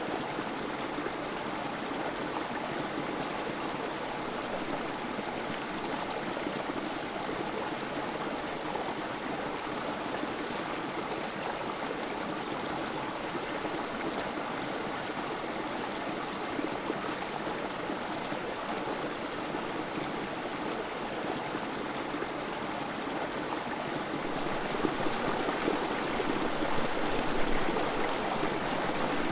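Creek water trickling and splashing over rocks in a small cascade into a pool, a steady rushing babble that grows a little louder and more uneven in the last few seconds.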